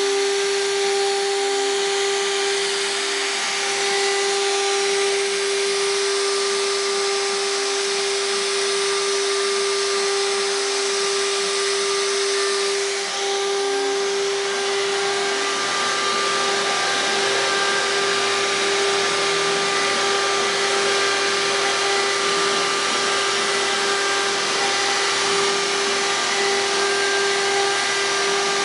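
CNC router spindle running at high speed and cutting a plaster-silica mold: a steady high whine over a constant hiss, dipping briefly about halfway through.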